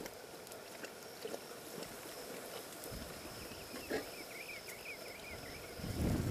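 Lions lapping water at a muddy pool, small wet clicks, over a steady high insect hum with some faint chirping. A brief low rumble about six seconds in is the loudest sound.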